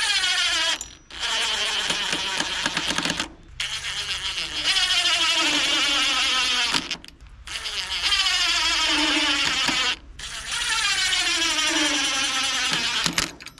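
Cordless power drill driving screws in about five runs of one to three seconds each, separated by short pauses. The motor whine falls in pitch during each run as the screw bites and loads the motor.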